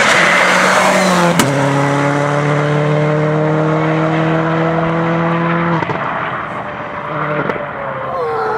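Subaru Impreza rally car's flat-four engine under hard throttle as the car passes and heads away. Its note drops sharply with a click about a second in, then holds steady for several seconds before the driver lifts. A falling engine note comes near the end as the car slows in the distance.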